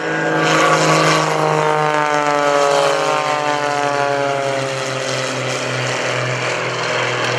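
Two propeller-driven aerobatic planes, a Wolf Pitts biplane and an MX-2 monoplane, climbing out just after takeoff. Their piston engines and propellers make a loud, steady drone whose pitch falls slowly as the planes fly past and pull away.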